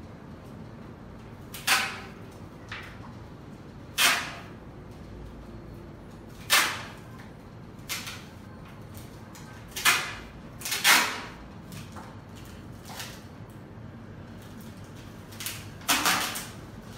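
Clear adhesive tape pulled off its roll in a series of short rips a second or more apart, the tape being used to fix an electric skateboard's XT60 Y-cable to the deck.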